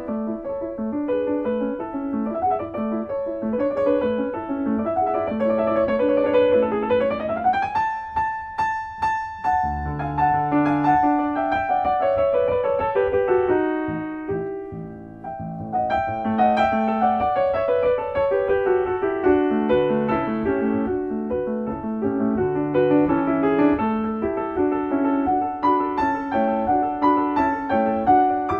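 Background piano music: a quick, lively run of notes, with a rising slide to a held note about seven seconds in.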